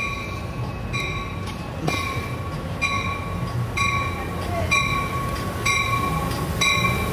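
Amtrak Pacific Surfliner passenger train pulling in with its cab car leading, a low rumble under a bell that rings a little faster than once a second. The sound grows slightly louder as the train comes closer.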